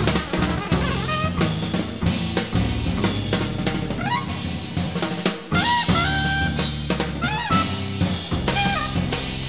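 Improvised jazz from a trumpet, bass and drum kit trio: busy drumming throughout, bass notes underneath, and the trumpet playing short notes that bend and slide in pitch. A brief drop a little past halfway, after which the trumpet plays somewhat longer notes.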